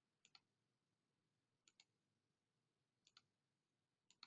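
Four faint clicks of a computer mouse button, a little over a second apart. Each click is a quick press-and-release pair.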